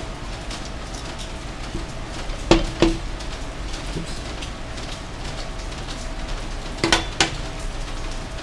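Metal kitchen tongs clacking, two pairs of sharp metallic clicks about four seconds apart, over a steady hiss of rain.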